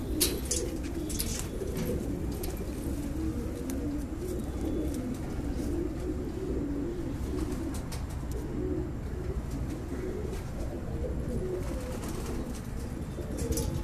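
A flock of domestic pigeons cooing without a break, a low, wavering warble of many overlapping birds, with a few sharp clicks, the loudest just after the start.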